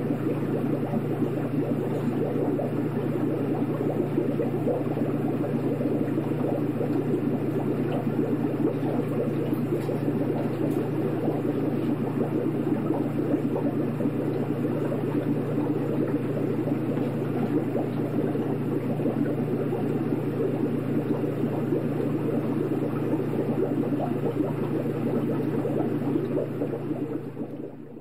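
Steady bubbling and water burble of a running aquarium over a continuous low hum from its pump. It fades down near the end.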